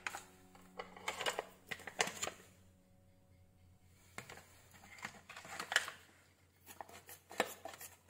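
A plastic soap refill pouch rustling and crinkling as it is handled, with scattered sharp clicks and snips of scissors cutting it open.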